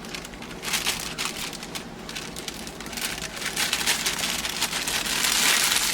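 Dry yellow cake mix being shaken out and spread over peaches in a baking dish: a dense rustling hiss of many fine ticks that starts about half a second in and grows louder toward the end.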